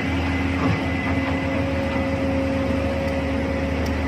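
Machinery running steadily: a low engine hum with a few steady tones and a faint high whine over an even rumble.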